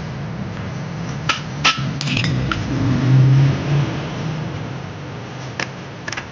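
Steady low hum of a running lathe, with several sharp metallic clinks of metal against metal during crankshaft alignment work.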